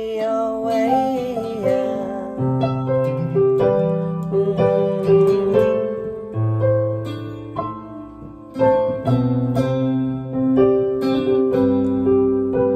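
A woman's held, wavering sung note trails off in the first two seconds. Then an instrumental passage follows: keyboard chords over steady bass notes, accompanied by guitar.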